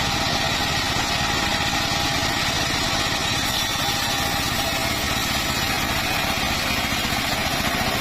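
Engine-driven circular saw running steadily, a constant engine drone with a steady whine above it and no change in load.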